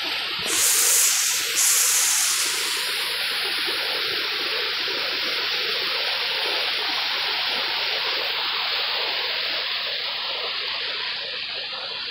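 Swollen, muddy creek in flood rushing fast over rocks and through submerged brush, a steady churning rush of water. About half a second in, two short, louder hissing surges briefly rise over it.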